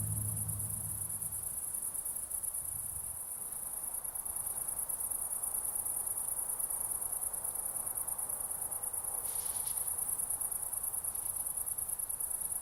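Crickets chirring in a steady, high, continuous trill. Low sustained music tones fade out in the first second or so.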